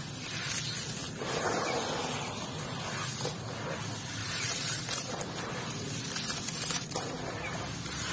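Hands squeezing and crumbling a lump of wet cement-and-sand mush in a tub of water: gritty crackling and hissing, with crumbs and slurry dropping back into the water.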